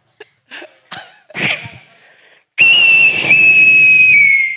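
A chiflador whistling firework going off: a few short crackles, then a loud, steady, high-pitched whistle about two seconds long that drops slightly in pitch near the end before dying away.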